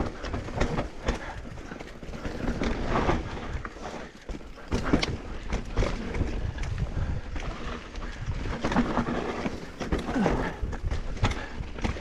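Mountain bike descending a rough downhill trail: tyres rumbling over dirt and rocks, with the bike rattling and knocking irregularly over bumps and wind buffeting the microphone.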